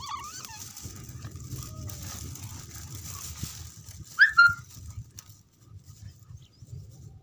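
Dogs play-fighting: a short whine near the start, then a sharp, high yelp about four seconds in, over a low rumble.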